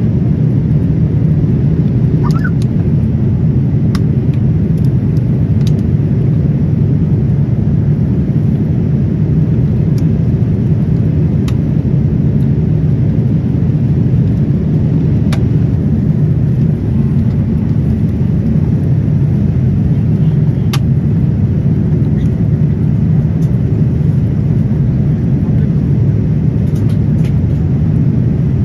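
Steady cabin noise of an airliner in flight: a loud, low, even rumble of engines and airflow, with occasional short clicks scattered through it.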